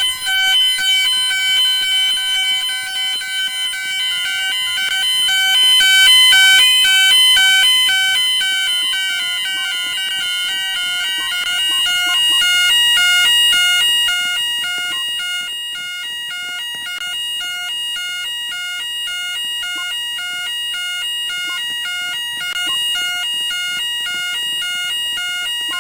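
Store fire alarm sounding: a rapidly pulsing set of alarm tones over one steady high-pitched tone. It is the alert signal of a voice evacuation system, which sounds between the recorded evacuation messages.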